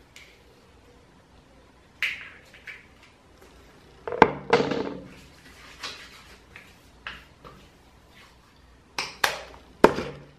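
Skincare sounds in a small tiled room: hands rubbing together and patting skin, broken by a few sharp clacks of hard items knocking or being set down. The loudest clacks come about four seconds in and near the end.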